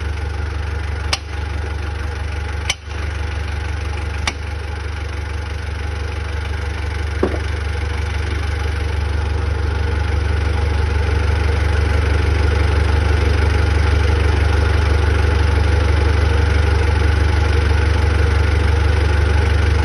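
Heavy machine's engine running steadily with a deep low hum, growing a little louder about halfway through. A few sharp clicks come in the first few seconds.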